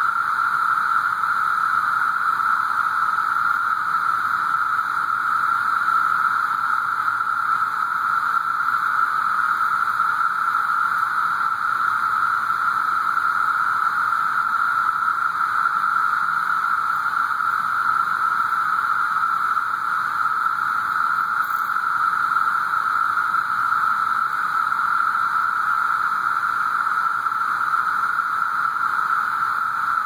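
Chorus of cicadas: a steady, unbroken high-pitched whine.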